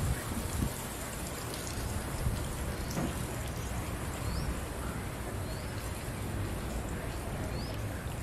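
Steady outdoor noise with a low rumble, typical of wind on the microphone, and a bird giving four short rising chirps a second or two apart.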